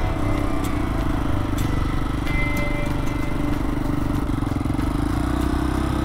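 Vintage Honda motorcycle engine running steadily while riding along a road, with wind rumble on the bike-mounted microphone.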